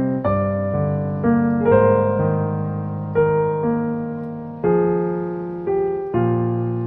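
Background piano music: a slow, gentle tune of struck chords that change every second or so, each note fading after it is struck.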